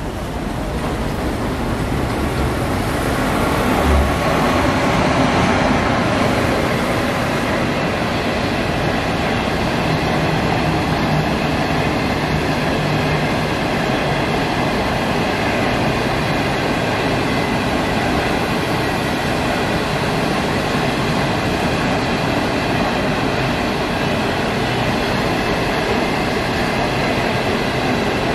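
Passenger train of conventional coaches rolling past: a steady rumble and rush of wheels on rails, building over the first few seconds and then holding even.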